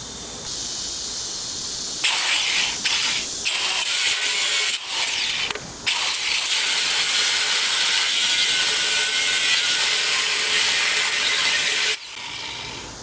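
Battery-powered grinder with an abrasive cutoff wheel cutting through the steel end of an air-compressor tank: a loud, high-pitched grinding hiss. The wheel bites in about two seconds in, breaks off briefly a few times, then cuts steadily and stops suddenly near the end as the cut goes through.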